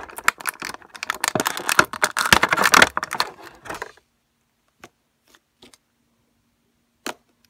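Clear plastic toy packaging crinkling and crackling as it is handled, stopping about four seconds in. Then a few light taps of small plastic pieces set down on a table, with a sharper tap near the end.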